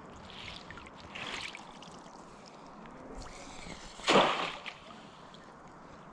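Lake water lapping and sloshing close to the microphone at the waterline, with one sharp, louder splash about four seconds in.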